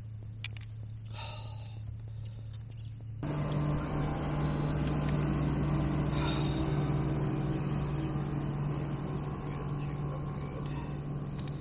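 A steady motor hum that steps up in pitch and gets louder about three seconds in, then holds steady.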